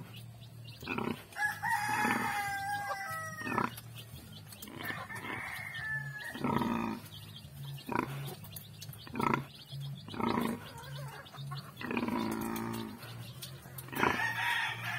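Nursing sow grunting in a steady rhythm as her piglets suckle, with a rooster crowing once about a second and a half in.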